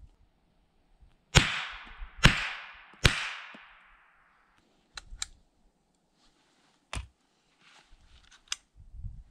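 Three shots from a Savage 64 semi-automatic .22LR rifle, a little under a second apart, each trailing a long fading echo. Then several sharp clicks as the rifle is handled and cleared.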